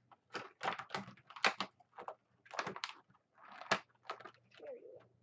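Hard plastic toy parts being handled and fitted together: a quick, irregular run of clicks and rustles.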